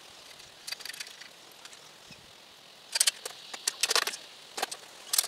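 Light metallic clinks and rattles of bolts, nuts and a tool as a sissy bar is fitted at the seat of a BMX: a few ticks about a second in, then quick bunches of clinks from about three seconds in, the busiest around four seconds.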